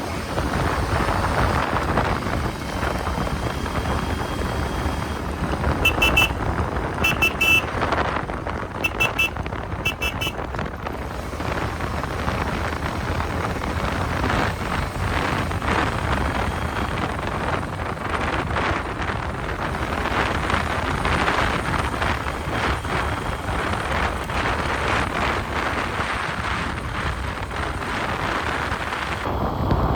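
Royal Enfield Meteor 350's single-cylinder engine and exhaust running steadily at cruising speed, with heavy wind noise on the microphone. A horn beeps four short times between about six and ten seconds in.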